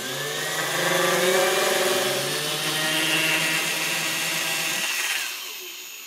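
Power drill running a 2.5 mm metal drill bit into an aluminium heatsink plate: the motor whine rises in pitch as it speeds up, holds steady, then winds down and stops about five seconds in.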